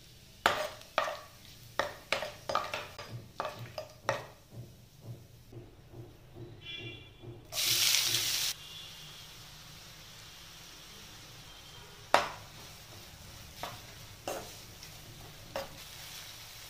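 Two chopped onions tipped into hot oil in a non-stick frying pan, a loud sizzle for about a second as they hit, settling into a steady low sizzle while a metal spatula scrapes and stirs them now and then. Before the onions go in, a quick run of sharp clicks and taps.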